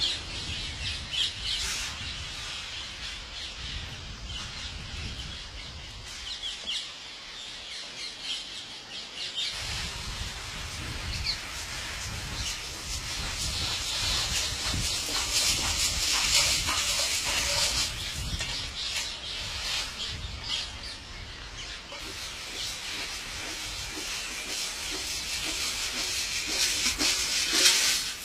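Parrots chirping and calling, many short high calls overlapping, over a steady hiss and low rumble.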